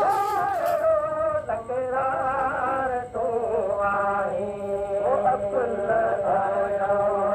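Male voice singing a Sindhi molood, a devotional song in praise of the Prophet, in long held notes whose pitch wavers and bends melismatically, with a low steady tone beneath in the second half.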